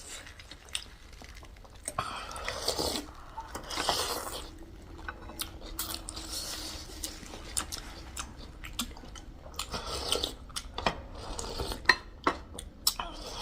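Mukbang eating sounds: chewing and crunching of food, with a spoon or fork clicking against a bowl now and then.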